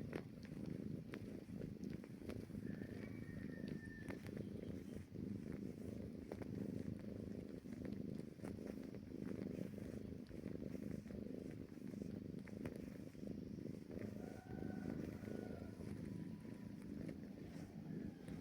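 Kitten purring in one steady, unbroken low rumble, the contented purr it gives while kneading.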